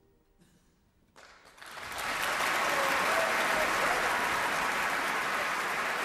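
After about a second of near silence following the last note, a large concert-hall audience breaks into applause. It swells within a second to full, steady clapping that continues.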